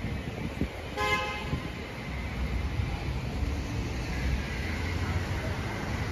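A short car horn toot about a second in, over a steady low rumble of city traffic.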